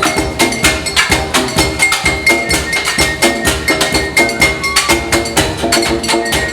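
Percussion music with a quick, even beat of wooden-sounding strikes and short pitched notes.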